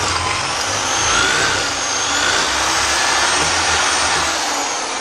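Corded electric drill running steadily with a high motor whine as its bit bores out the bolt hole in a metal FMF Q4 exhaust quiet insert, enlarging the hole so the supplied bolt will fit.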